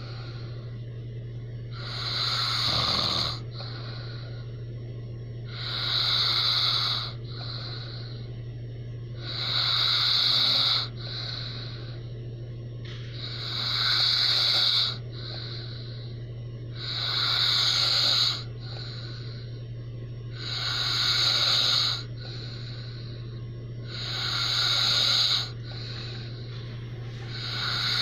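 A man snoring heavily in his sleep: a loud snore roughly every three and a half to four seconds, each lasting over a second and followed by a shorter, softer breath.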